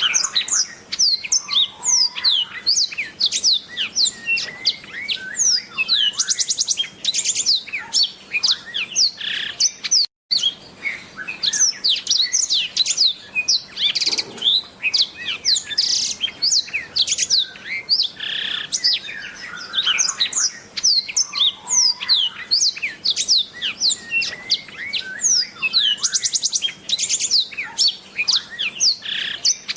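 Black-throated canary (blackthroat) singing a long, fast, unbroken song of quick falling high notes mixed with short rapid trills, with a brief break about ten seconds in.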